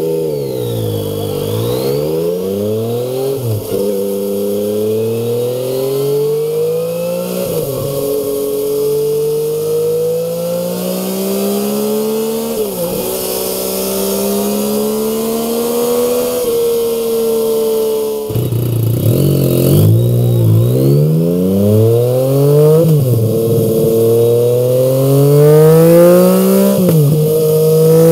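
Yamaha MT-09 (FZ-09) 847 cc inline three-cylinder engine accelerating through the gears, rising slowly in pitch and dropping sharply at each upshift. It is heard first through the stock exhaust, then from about 18 s in through a MIVV M2 slip-on muffler, which is louder.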